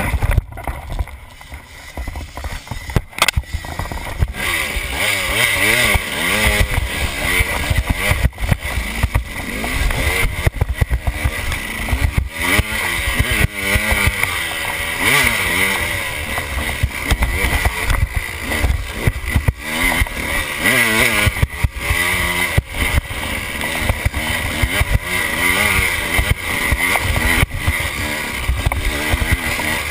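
KTM enduro dirt bike engine being ridden, its pitch rising and falling with the throttle, with frequent knocks and rattles from riding over rough ground. It is quieter for the first few seconds, then runs harder from about four seconds in.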